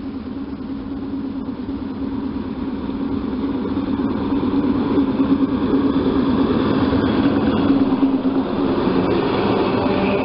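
ER2T electric multiple unit approaching and running past the platform, a steady rumble and hum that grows louder over the first few seconds and then holds as the cars go by close.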